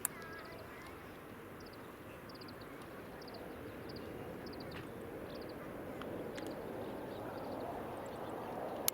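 Small birds chirping in quick runs of short high notes over a low, distant rushing rumble that slowly grows louder.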